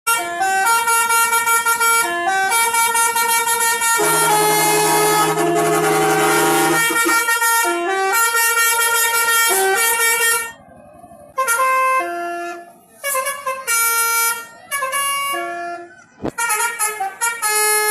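Basuri (telolet) musical truck horn playing a tune in stepped, held notes. About four seconds in, a louder, deeper horn chord joins for a few seconds. From about ten seconds in, the tune comes in short phrases with brief gaps between them.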